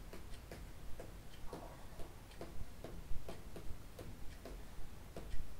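Regular ticking, about two ticks a second.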